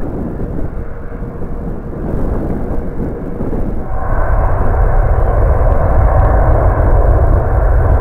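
Jet engines of a Boeing 777-300ER, its GE90-115B turbofans, running ahead of takeoff: a deep rumble that gets louder about four seconds in, where a steady whine joins it.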